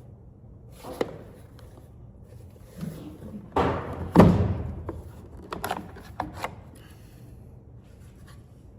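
Plastic casing of an APC Back-UPS 750 being handled and opened by hand: a sharp click about a second in, two heavy thuds a little over halfway through, then a run of small clicks.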